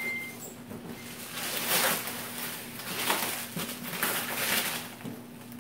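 Clear plastic stretch wrap crinkling and rustling in several swells as it is pulled and torn off a large cardboard shipping box.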